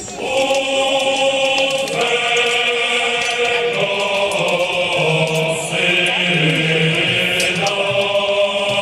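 Choral music with long held chords that change every two seconds or so, played over a loudspeaker system.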